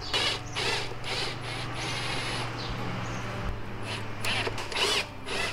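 Electric drill boring a 7 mm hole through a resin trunk lid: a steady motor hum with repeated short grinding bursts as the bit cuts into the plastic. The motor's pitch drops slightly about halfway through.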